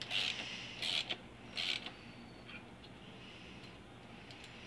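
Gear puller's forcing screw being turned against a crankshaft pulley, creaking in three short strokes over the first two seconds before it goes quieter.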